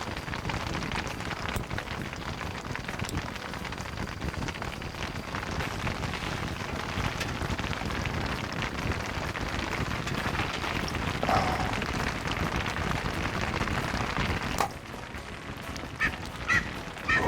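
Steady rain falling on foliage, an even hiss that cuts off suddenly about fifteen seconds in. Then a game bird starts calling in short repeated notes, about two a second.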